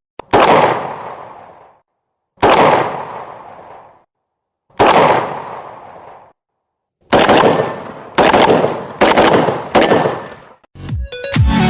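Shotgun fired seven times, each blast fading off in a reverberating tail: three single shots about two seconds apart, then four quicker shots about a second apart. Electronic music comes back in near the end.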